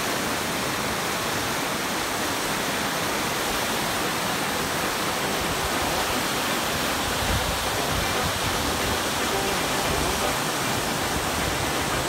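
Whitewater rapids rushing over and between boulders in a river: a steady, even rush of water.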